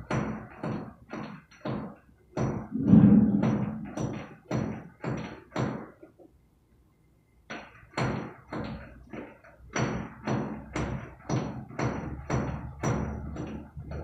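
Hammer chipping at a rough concrete slab in steady blows, about two a second, knocking off the sharp high spots. One blow about three seconds in is heavier. The blows pause for about a second and a half just past the middle, then resume.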